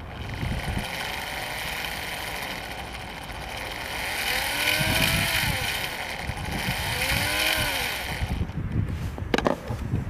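Small electric motor of a kite-steering robot whining as it is driven back and forth by joystick, its pitch rising and falling twice, over low rumbling wind noise on the microphone. A sharp click near the end.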